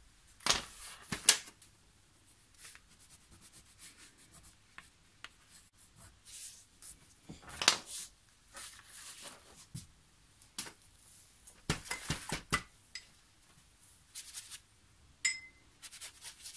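Wax crayons scratching across paper in short, uneven bursts of sketching strokes, with pauses between them. A few sharp clicks and taps come between the strokes, the loudest about a second in.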